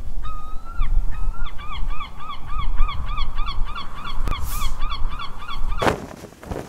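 A gull calling over the sea: a few drawn-out notes, then a rapid run of short yelping calls at about four a second, over a low rumble. The calls stop near the end, where a loud whoosh comes in.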